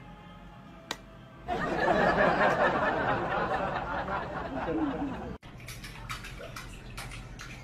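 A Flyco hair dryer switches on suddenly about one and a half seconds in and blows with a steady rush. After an abrupt cut, a kitchen tap runs into a steel sink with light splashing and clicks.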